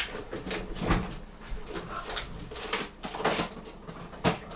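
Rummaging through clear plastic storage boxes of IC sockets: an irregular run of rattles, clicks and knocks as boxes are handled and swapped.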